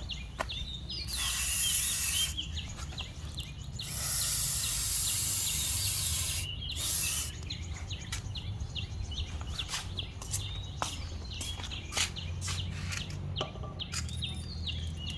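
WD-40 aerosol spraying in three hissing bursts, the middle one the longest, to lubricate an old squeaking autogate. Birds chirp throughout.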